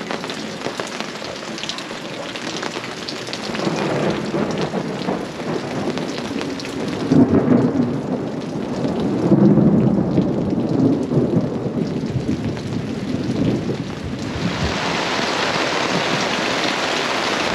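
Rain falling steadily in a thunderstorm, with rolls of thunder rumbling through the middle. About fourteen seconds in it becomes a heavy downpour, louder and hissier.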